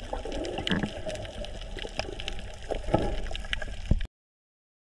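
Underwater sound of water moving and bubbling around a snorkeler's camera, with a low rumble and scattered sharp clicks. It cuts off abruptly about four seconds in.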